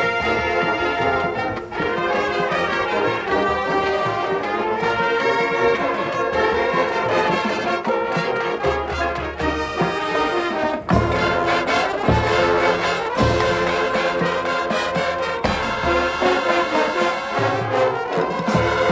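Marching band brass and percussion playing a field show arrangement, loud and full with trombones and trumpets. The low brass and drums grow heavier about halfway through.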